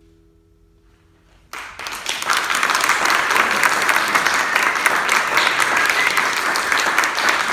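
The last chord of a classical guitar fades out. About a second and a half in, the audience breaks into applause, which keeps up steadily.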